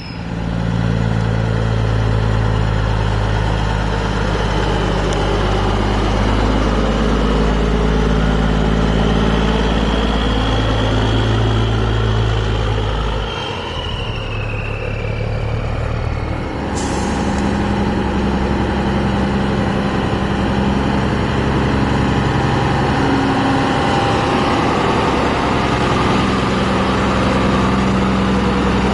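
Big-rig truck diesel engines running as trucks pull away, with a steady low engine note that shifts about 13 and 17 seconds in and a whine that falls in pitch around 15 seconds. A short, sharp hiss of air-brake air comes about 17 seconds in.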